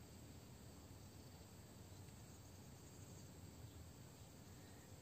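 Near silence: faint outdoor ambience with no distinct sound events.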